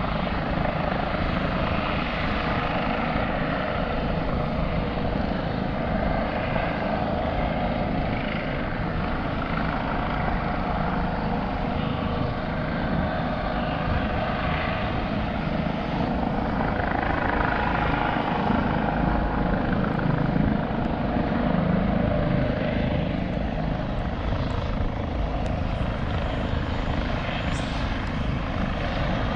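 Low-flying RAF training helicopters, a steady, continuous rotor and turbine-engine noise.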